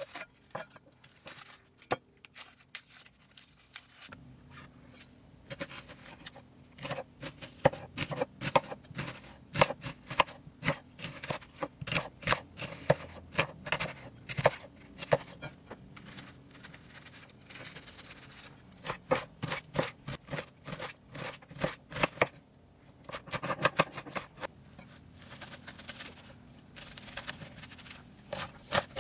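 Chef's knife cutting an onion on a wooden cutting board: crisp slices through the onion, each ending in a tap of the blade on the board, in uneven runs that grow into quick rapid chopping toward the end.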